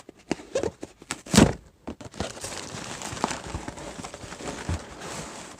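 A box being opened by hand: a few knocks and thuds, then steady rustling and crinkling as the packing inside is pulled about.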